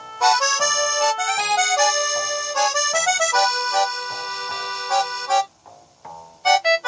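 Background music: a melody over held chords that breaks off about five seconds in, followed by a few short detached notes near the end.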